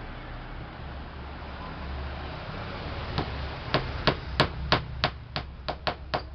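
Small hammer tapping nails into a 10 mm plywood board, about ten quick strikes at roughly three a second, starting about three seconds in, over a steady low background hum.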